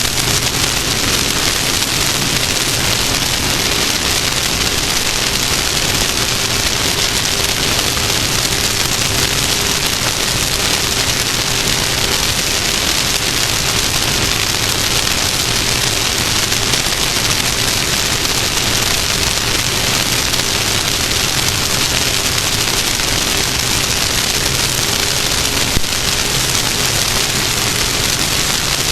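Off-road race vehicle running at a steady pace: a loud, even hiss of wind and road noise over a faint, steady engine hum.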